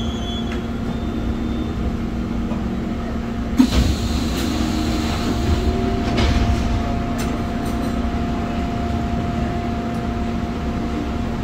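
Busan Metro 1000-series subway car heard from inside as it comes to a halt at a station: a steady electrical hum over low rumble, with a knock and a brief rush of noise about three and a half seconds in as the train stops.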